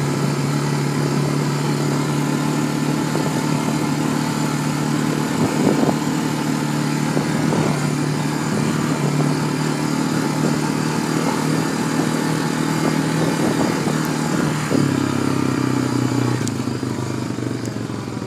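Quad bike (ATV) engine running steadily under way, with a few sharp knocks from the machine. About fifteen seconds in, the engine note drops lower, then it fades near the end.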